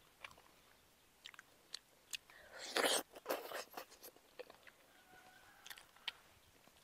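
Close-miked sounds of eating a soft purple-fleshed fruit: scattered wet mouth clicks and smacks, with a louder, wetter burst about three seconds in as the fruit is pulled apart and bitten.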